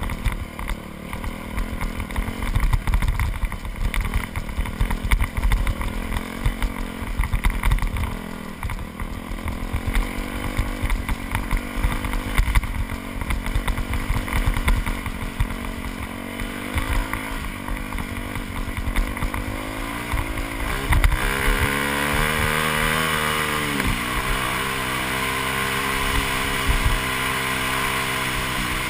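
2001 Yamaha YZ426F's four-stroke single-cylinder dirt-bike engine, ridden at low, uneven revs over rough ground with knocks from the bumps. About 21 seconds in it revs up, drops briefly, then pulls steadily at higher revs with more wind noise as the bike speeds up.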